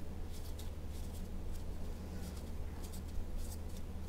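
Faint, irregular rustling and soft squeaks of disposable-gloved hands pressing and kneading a crumbly shampoo-bar dough into a ball in a stainless steel bowl, over a steady low hum.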